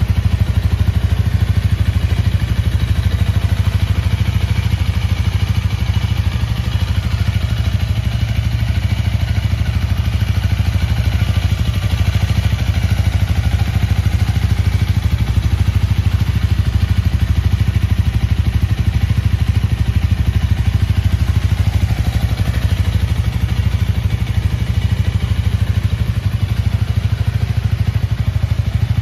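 Honda Rebel 250 S Edition's single-cylinder engine idling steadily, with no revving.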